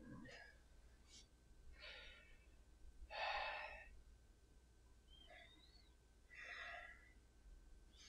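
A man catching his breath after a clubbell workout: three quiet, heavy exhales about two, three and a half and six and a half seconds in, the middle one the loudest.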